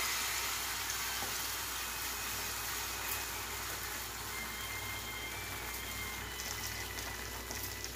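Rice batter sizzling steadily as it is ladled into a hot nonstick pan greased with a little ghee.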